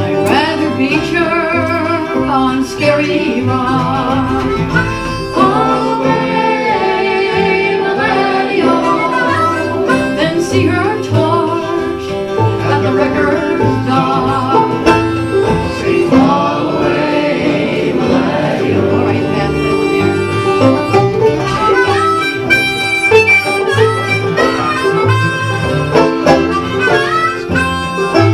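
Acoustic folk band playing, several instruments together with a steady beat.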